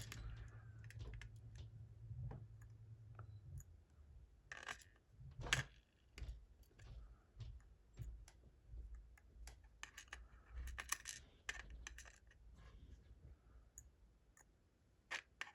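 Small steel lock pins being dropped into the chambers of a plug holder: faint, irregular light clicks and metallic taps, a few louder ones in the middle.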